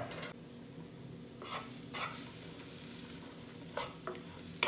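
Chopped onion, garlic and ginger frying gently in melted vegan butter in a non-stick pan, with a faint steady sizzle. A wooden spoon stirs and scrapes them across the pan a few times.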